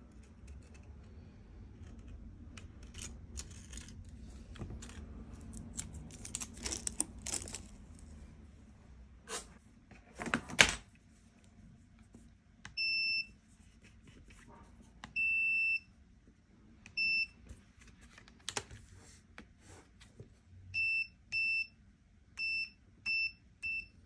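A high electronic beeper sounding about eight times in the second half, the beeps of uneven length, from short chirps to about half a second. Before them there is handling and rustling noise with one sharp knock about ten seconds in, the loudest sound here.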